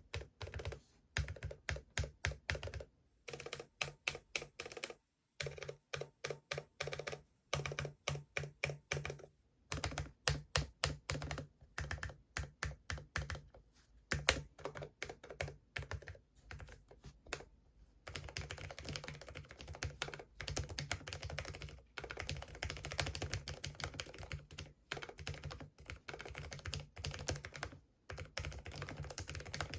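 Typing on a Cherry MX Board 10.0 low-profile mechanical keyboard with Cherry MX Low Profile switches, each key giving a sharp click. For the first part the keystrokes come in short runs with brief pauses. Past the halfway point they turn into fast, continuous typing.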